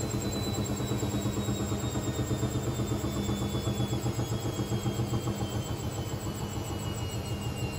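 Hoover VisionTech washing machine's drum slowing down after a spin, the motor's whine falling steadily in pitch over a pulsing, rhythmic rumble.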